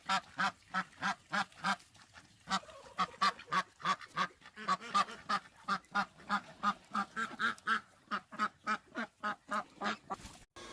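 Waterfowl calling in a rapid, even run of nasal calls, about three a second, with a short break about two seconds in. The calls stop abruptly just before the end.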